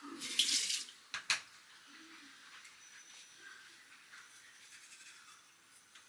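Bathroom tap water running briefly into the sink, followed by two sharp clicks a little after a second in; then only a faint hiss.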